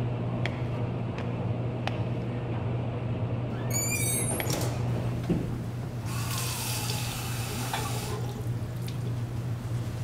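Water running from a single-lever bathroom faucet into a porcelain sink, starting about six seconds in and shutting off a couple of seconds later, over a steady low hum. A short squeaky creak comes about four seconds in.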